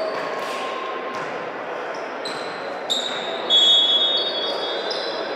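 Repeated high-pitched squeaks of players' sneakers on an indoor court floor during a volleyball rally, with the loudest squeak about three and a half seconds in, over the murmur of the gym.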